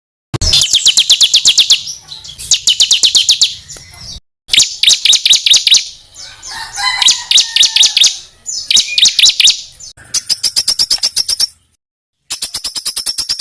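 A songbird singing rapid-fire phrases of sharp, evenly repeated high notes, about ten a second, in bursts of one to two seconds with short breaks. Near the middle there are a few lower sliding notes. These are the dense 'tembakan' (shot) phrases used as masteran to tutor competition songbirds.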